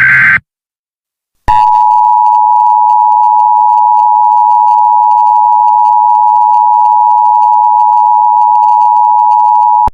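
Emergency Alert System broadcast tones. The tail of a SAME header data burst ends a fraction of a second in. After about a second of silence, the EAS attention signal comes in: a loud, steady two-tone alert (853 and 960 Hz) that holds for about eight seconds and cuts off abruptly near the end.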